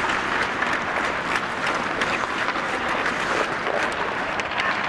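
Hockey skate blades scraping and hissing on the ice, mixed with frequent sharp clacks of sticks on pucks, in a large arena.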